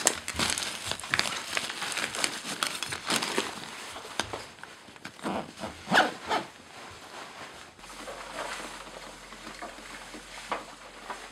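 Camera handling noise: rustling and scraping against fabric and a backpack strap, with scattered clicks and a few louder knocks. About two-thirds of the way through it gives way to a quieter stretch with a low hum and only occasional faint clicks.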